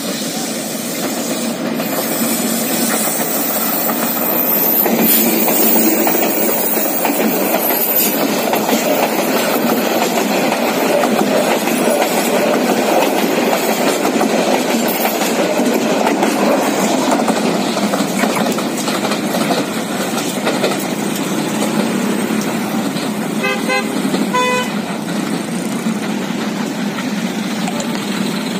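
Diesel locomotive 2402 hauling a passenger train past at speed: engine running and a steady rumble of carriage wheels on the rails, loudest midway as the coaches go by. A horn sounds briefly twice near the end.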